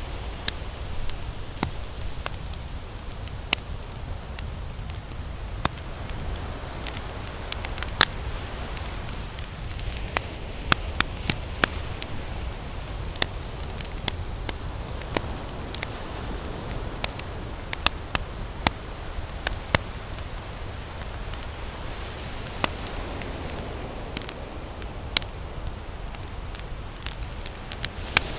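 Campfire crackling, with sharp wood pops scattered irregularly over a steady low rush of beach surf that swells gently now and then.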